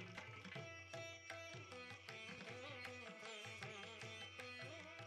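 Quiet instrumental background music in an Indian classical style: a plucked-string melody with bending notes over a steady drone, with hand-drum strokes.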